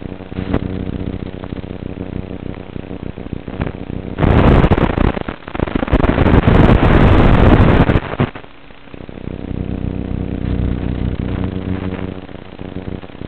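FPV quadcopter's motors and propellers buzzing steadily in flight. From about four to eight seconds in, a loud rushing noise covers the buzz.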